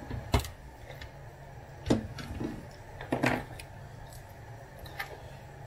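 Hand tools and plastic wiring connectors being handled on a workbench: a few short clicks and knocks, the loudest near the start and about two seconds in, over a low steady hum.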